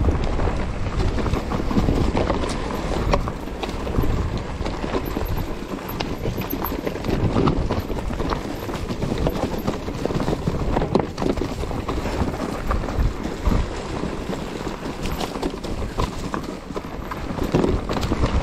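Mountain bike clattering and rattling as it rides fast downhill over a rough trail, with dense irregular knocks from the tyres and frame hitting bumps, over low wind rumble on the microphone.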